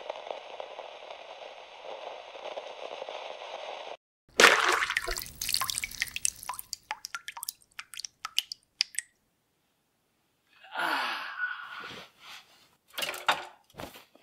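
A steady hiss cuts off suddenly, then a loud liquid splash followed by a run of drips that thin out over several seconds. Two shorter noisy sounds come near the end.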